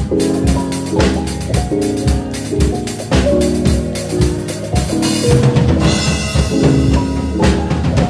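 Drum kit played with sticks along to a backing music track: steady snare and bass drum hits under the track's chords, with a cymbal ringing out for a couple of seconds from about five seconds in.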